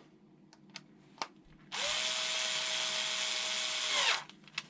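A small electric motor spins up, runs at a steady whir for about two and a half seconds, then winds down, after a couple of light clicks.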